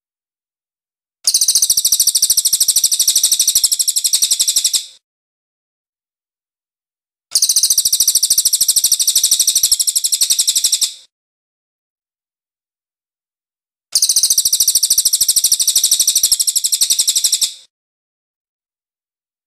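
Crested jay (cililin) giving three long trills of very rapid, high-pitched repeated notes, each about three and a half seconds long, separated by silent pauses of about two and a half seconds.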